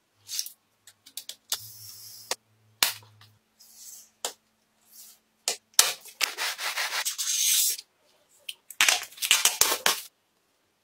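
Hand work on a small object: scattered clicks and short scrapes, then a steady rubbing about six seconds in and a run of quick rubbing strokes near the end.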